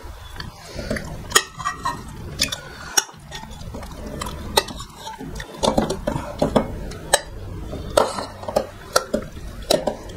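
Eating by hand from steel plates: fingers mixing and scooping fish curry and rice, with irregular sharp clinks of a metal serving spoon against a metal pot and plates.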